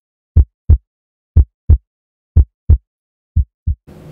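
Heartbeat sound effect: low double thumps, lub-dub, about once a second, the last beat quieter. Faint room tone comes in near the end.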